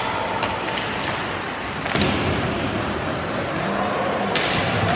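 Ice hockey rink sound: a steady wash of arena noise with several sharp clacks of sticks and puck, the loudest about two seconds in.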